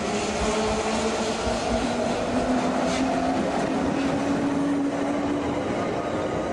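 Two-car electric light-rail tram passing close by, with a whine that rises steadily in pitch over rumbling wheel noise. A few sharp clacks from the wheels on the rails come about three to four seconds in.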